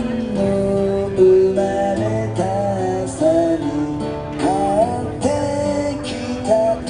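Background music led by acoustic guitar, with a gliding melody line over a steady bass.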